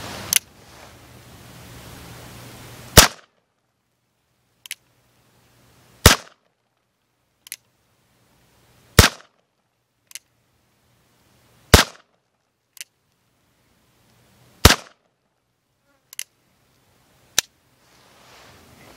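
Cimarron 1851 Navy conversion revolver in .38 Special firing five single shots about three seconds apart, with fainter clicks between the shots.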